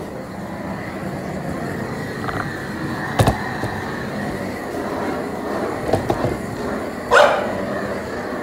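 A dog barks once near the end over a steady background rumble, with a sharp knock about three seconds in and a few lighter knocks shortly before the bark.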